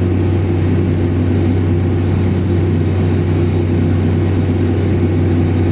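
Vehicle cruising at steady highway speed, heard from the driver's seat: a constant low engine and road hum with no change in pitch or level.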